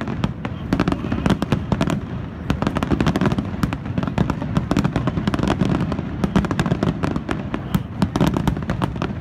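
Aerial firework shells bursting in quick succession: a dense run of sharp pops and bangs over a continuous low rumble.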